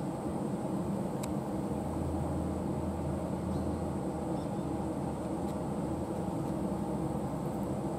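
Steady low outdoor rumble, like distant traffic, with a faint thin high tone throughout and a single sharp tick about a second in.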